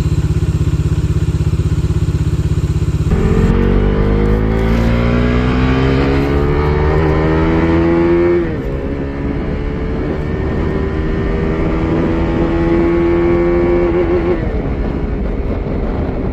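Bajaj Dominar 250's single-cylinder engine through its stock exhaust: an even, pulsing idle, then about three seconds in the revs climb steadily for several seconds and fall away, and climb and fall once more.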